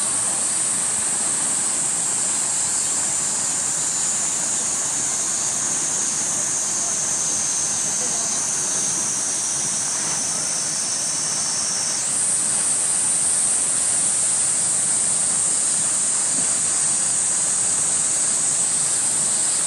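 Steady high-pitched drone of a summer cicada chorus. The droning band sinks slowly in pitch, then jumps back up and grows a little louder about twelve seconds in.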